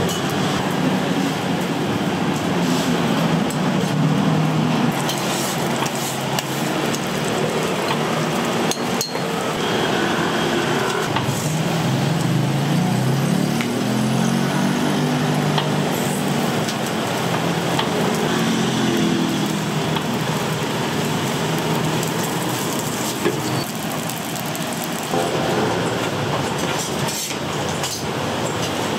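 Busy kitchen noise: dishes and utensils clinking and knocking over a steady hiss, with muffled voices low in the background around the middle.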